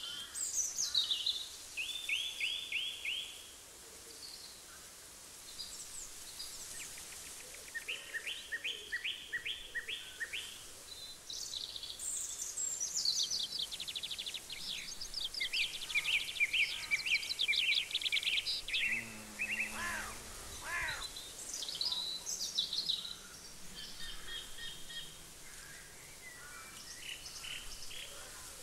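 Wild songbirds singing: fast trills and high, quick descending phrases, coming in bursts every few seconds, over a faint steady outdoor hiss.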